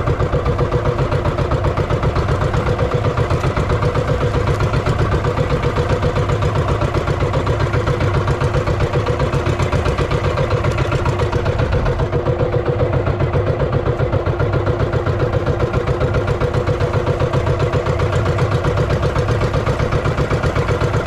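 Small outrigger boat's engine running steadily under way while trolling, with a fast, even chug.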